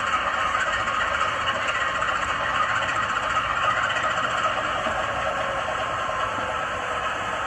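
ESU LokSound 5 sound decoder playing a GE 7FDL-16 diesel prime-mover sound through the small speaker of a model Dash 9 locomotive, running steadily; the sound is thin, with little bass.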